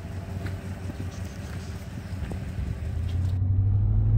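A vehicle engine idling with a steady low hum. About three seconds in it changes to the louder, steady low rumble of a vehicle driving on a gravel road, heard from inside the cabin.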